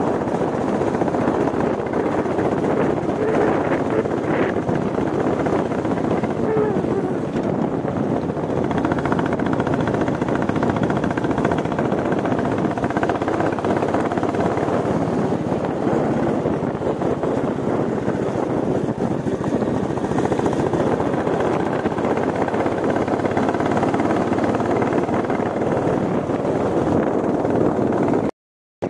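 Royal Enfield Bullet 350's single-cylinder engine running steadily while the motorcycle is ridden, mixed with wind noise, with a brief drop to silence near the end.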